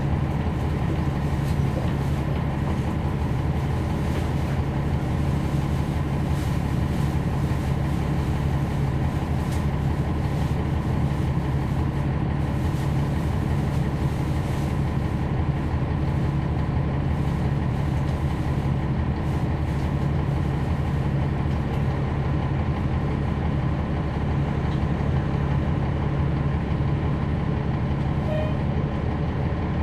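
NABI 416.15 (40-SFW) transit bus heard from inside the cabin, its Cummins ISL9 diesel engine running steadily at an even level.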